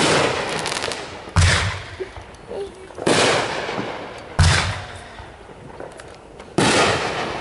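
Aerial fireworks going off: five sharp bangs every one and a half to two seconds, some with a deep boom, each trailing off in crackling and hiss.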